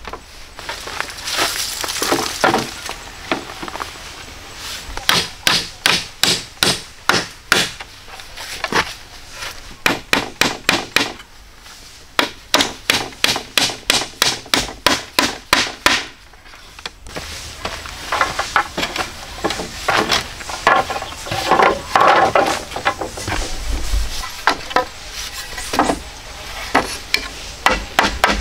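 Wood being struck over and over with a tool in runs of quick blows, about three a second, with short pauses between runs.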